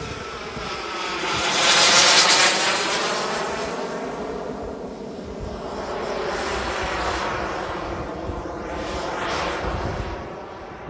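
Radio-controlled F-22 Raptor model jet's single JetsMunt 250 turbine running in flight, a rushing whine that is loudest as the jet passes close about two seconds in. It then fades and swells again twice, with the pitch sweeping as the jet turns away.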